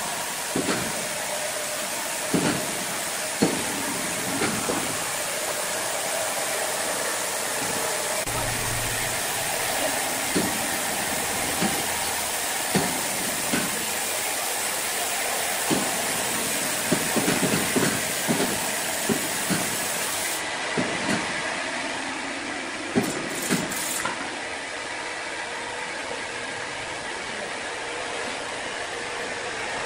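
Large band saw mill running and sawing through a big red hardwood log, a steady hissing whir with frequent short knocks and clunks from the log and its carriage. The noise drops a little about 24 seconds in.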